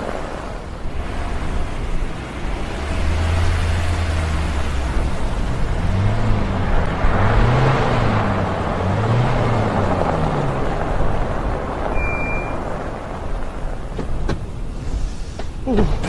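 Audi taxi driving through a snowstorm: a steady rush of wind and tyres over a low engine hum, with a low tone swelling and dipping a few times midway. A short high beep sounds about twelve seconds in, and a few sharp clicks and knocks near the end, as a car door opens.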